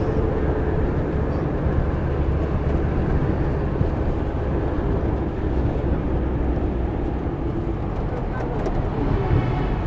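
Steady engine and road rumble heard from inside a combi microbus.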